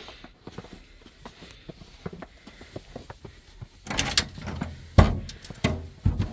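A door being opened to go outside: faint small clicks, then the rustle and rattle of the door about four seconds in, with a sharp knock about a second later and two more knocks near the end.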